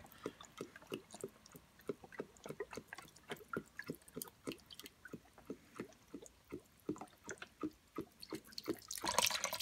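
Beef broth poured in a thin stream from a carton into the Instant Pot's inner pot, trickling into the liquid with faint, irregular little drips and splashes, several a second. The pour gets louder about nine seconds in.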